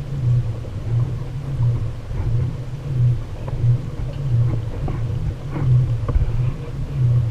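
Wind buffeting the microphone of a kayak-mounted action camera: a low, uneven rumble that swells and fades about twice a second, with faint ticks over it.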